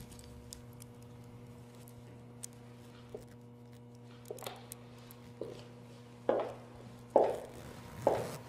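A low steady hum, then from about halfway through a run of dull thuds about once a second, getting louder over the first few strokes.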